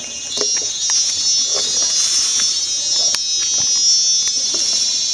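Loud, steady, high-pitched insect buzzing that swells about half a second in, with a few short clicks over it.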